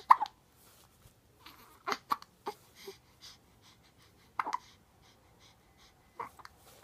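Repeated hiccups: short, sharp hics about every two seconds, some of them coming as quick doubles, the loudest near the start.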